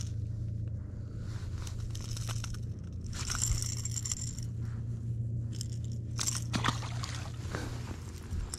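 Steady low hum under scattered clicks, scrapes and rustles of handling.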